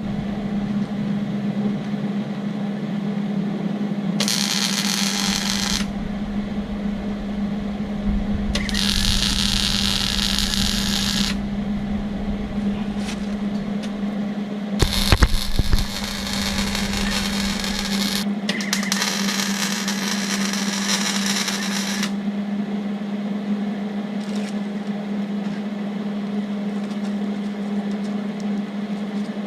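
Welder humming steadily while weld beads are laid on steel roof-rack legs: four arc bursts of a few seconds each, crackling and hissing, with a few sharp knocks around the middle.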